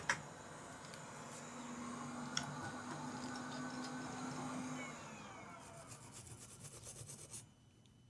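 Faint scrubbing and rubbing on the laptop circuit board, cleaning flux off around a newly soldered USB-C charging port. A faint steady hum lies under it for the first few seconds. It ends in a quick run of small scratchy strokes that stop abruptly near the end.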